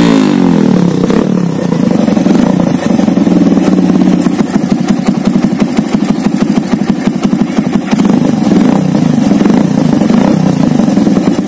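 Suzuki Thunder's single-cylinder four-stroke engine running at idle with a fast, even exhaust pulse, through a muffler whose worn rear baffle has been replaced by a perforated stainless-steel plate, giving a soft, not noisy note. A rev falls away just at the start.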